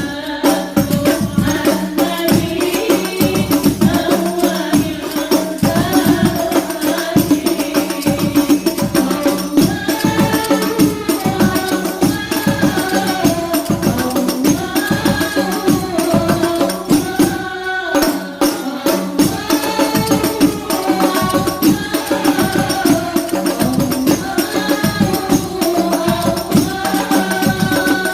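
Habsyi ensemble performing Islamic devotional song: voices singing a chant-like melody over rapid, steady frame-drum (rebana) beats, with a brief pause in the drumming about two-thirds of the way through.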